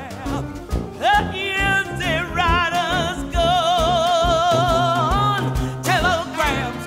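Background song: a singer holds one long wavering note with vibrato in the middle, over a steady accompaniment with a beat.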